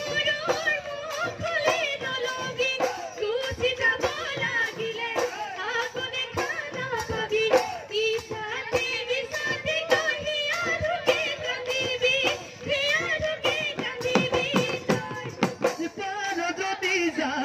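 Bihu folk music played live: Assamese dhol drums beaten in a fast, busy rhythm under singing and a sustained melodic line.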